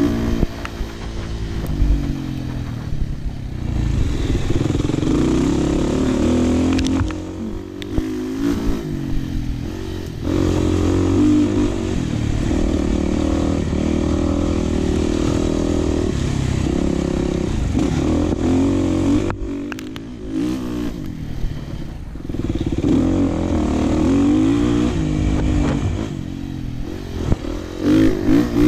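Dirt bike engine under way on a trail, the throttle opening and closing repeatedly so the engine note rises and falls, easing off briefly a few times before pulling again.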